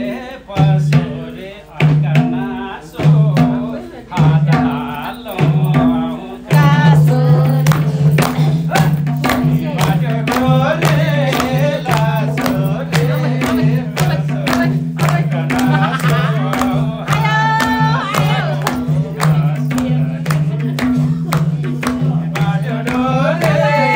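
Nepali dohori folk song: voices singing over a steady hand-drum beat. The drum strokes are spaced with short gaps for the first six seconds, then the music runs on without a break.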